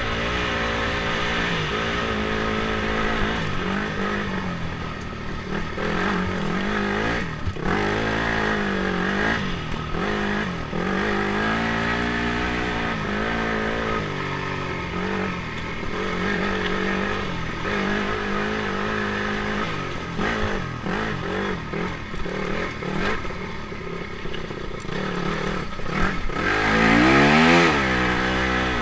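Dirt bike engine running under changing throttle, its pitch rising and falling again and again as the rider rolls on and off and shifts, with one strong rev near the end; heard from the rider's helmet.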